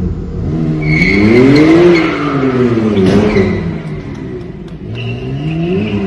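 Sports car engine revving hard, its pitch climbing to a peak about two seconds in, falling, then climbing again near the end, with tyres squealing throughout as the car spins in a smoky burnout.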